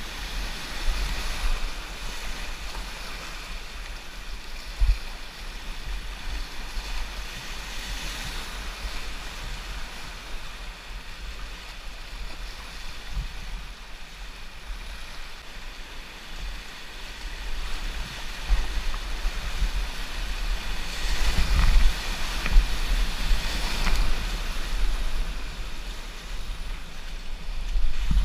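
Whitewater river rapids rushing and splashing around a kayak, with wind buffeting the microphone as a low rumble. It grows louder about two-thirds of the way through, and there are a few short low thumps.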